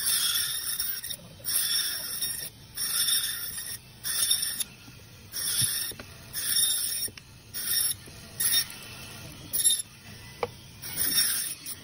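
Band saw cutting frozen fish into steaks: about ten short, harsh, high-pitched bursts, each under a second, as the blade goes through the frozen flesh slice after slice. A quieter running noise from the saw fills the gaps between cuts.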